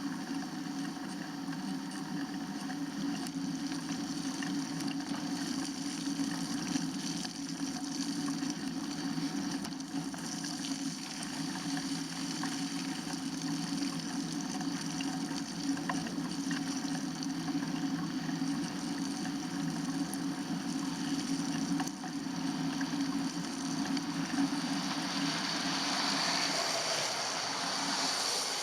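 Steady road noise of a bicycle riding on wet, slushy pavement: tyre hiss and rumble with wind on the microphone, and a louder rushing hiss building near the end.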